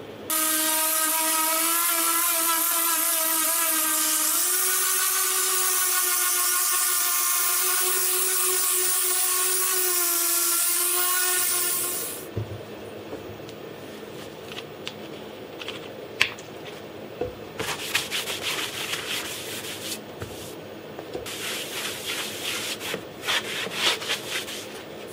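X-Carve CNC router spindle with an up-spiral bit running and surfacing oak end grain: a loud steady whine that steps slightly higher in pitch about four seconds in, then stops about twelve seconds in. After it, quieter intermittent rubbing on wood, in two stretches near the end.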